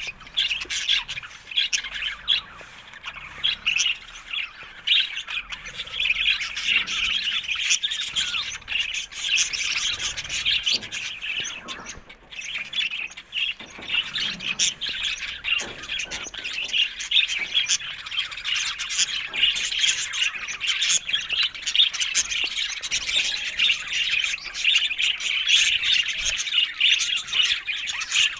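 Flock of budgerigars chirping and chattering continuously, a dense stream of rapid high chirps with occasional squawks.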